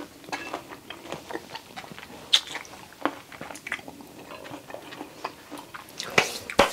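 A person chewing and biting into fresh cherries close to the microphone: irregular small wet mouth clicks, with a couple of louder ones near the end.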